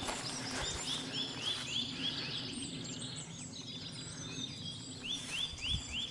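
A songbird singing runs of a repeated short chirping note, about four notes a second: one run over the first two seconds and another starting about five seconds in, over a steady hiss of woodland background noise.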